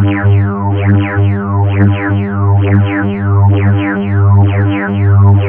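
Synthesized emergency-alert-style alarm tone: a steady low drone under stacked tones, with quick falling sweeps repeating two or three times a second.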